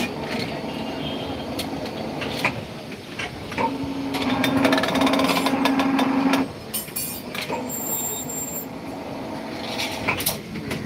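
Electric rebar bending machine bending a bundle of steel bars into stirrups. Its motor and bending disc hum steadily from about three and a half seconds in, stopping abruptly about three seconds later, and the steel bars clank and rattle throughout.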